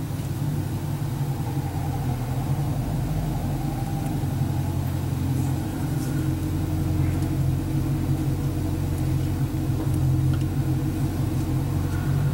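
A steady, low mechanical hum from a running motor or engine, with a few faint ticks partway through.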